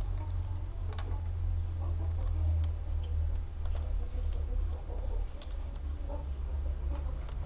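Scattered light clicks and taps of hands and small tools working on an open laptop as its hard disk is being unfastened, over a steady low hum.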